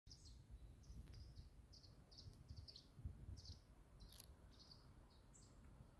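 Faint bird chirps: about a dozen short, high calls at irregular intervals, over a faint low rumble.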